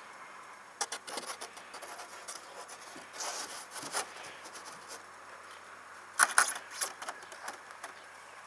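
Footsteps crunching on gravel and dry leaves, in a few irregular clusters. The loudest cluster comes about six seconds in.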